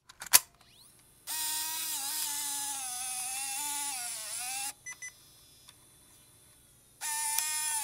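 Camcorder tape-loading mechanism. A sharp click, then the small loading motor whirs for about three and a half seconds, its pitch wavering and dipping just before it stops. Two small clicks follow, and the motor whirs again briefly near the end.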